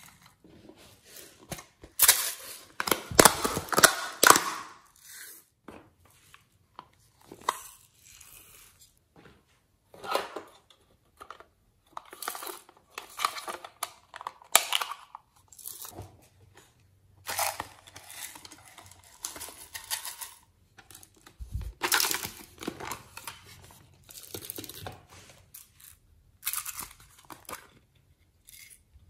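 Crinkling and rustling of plastic packaging and the clicks of small plastic cases being opened as sequins and glitter are tipped out, in short irregular bursts. The loudest run comes a few seconds in.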